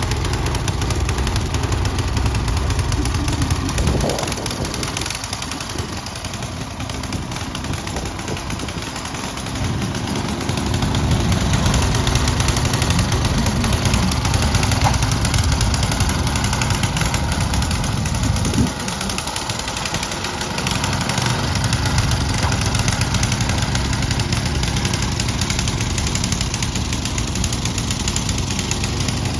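Snow blower's engine running steadily as it clears snow. It eases off for a few seconds about four seconds in and again briefly after the middle, then comes back up.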